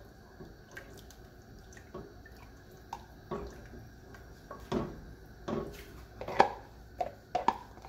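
Wooden spoon tapping and scraping inside a plastic measuring cup and against a pot of liquid, with coconut milk dripping from the cup into the pot; a handful of light knocks, the loudest about six and a half seconds in.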